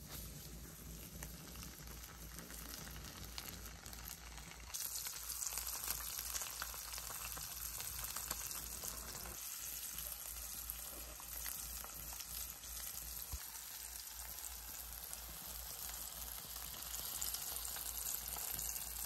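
Battered brook trout frying in hot oil in a cast-iron skillet: a steady sizzle with dense crackling, which gets louder and brighter about five seconds in.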